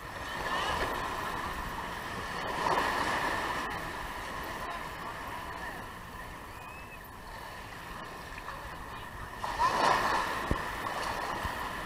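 Small surf waves breaking and washing up the sand at the water's edge, swelling louder three times, with voices of people on the beach in the background. A thin steady high tone runs underneath.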